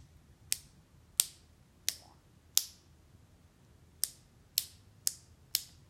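Honda Nighthawk motorcycle headlight switch clicked repeatedly by hand, about eight sharp clicks: four roughly two-thirds of a second apart, a short pause, then four quicker ones. The switch is being tested after its corroded contacts were cleaned.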